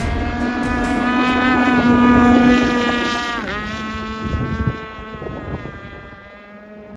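26cc two-stroke engine of a gas RC mono hull boat running at high revs, a steady high whine; about three and a half seconds in the pitch dips sharply and comes back up, then the sound fades away. Wind on the microphone underneath.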